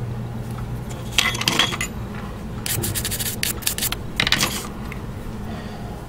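Steel wax-carving tool scraping fine detail into a hard jewelry carving wax, in three bursts of quick scratchy strokes over a low steady hum.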